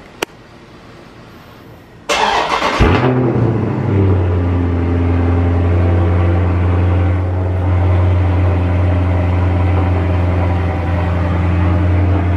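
A click, then about two seconds in a Dodge Charger Scat Pack's 392 HEMI V8 cranks and fires on a cold start with a loud flare of revs. It settles within a couple of seconds into a steady, deep, fast cold idle.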